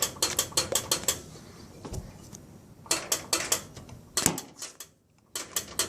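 Runs of sharp, quick clicks and light clinks, several a second, with short pauses between the runs.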